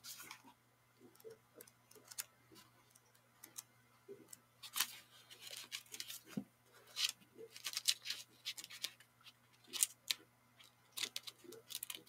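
Thin Bible pages being turned by hand: an irregular scatter of short paper flicks and crinkles, a few louder than the rest, over a faint steady hum.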